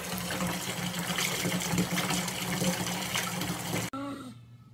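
Tap water running into a bathtub, a steady rush that cuts off suddenly about four seconds in. A brief pitched call from a serval follows.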